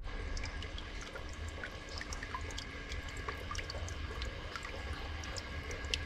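Water trickling and dripping from a small solar-pumped bamboo fountain, with many scattered drips over a steady low rumble.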